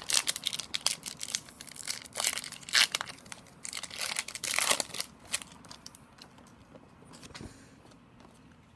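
Foil trading-card pack wrapper torn open and crinkled by hand: a run of sharp crackles for about the first five seconds, then quieter handling as the cards come out.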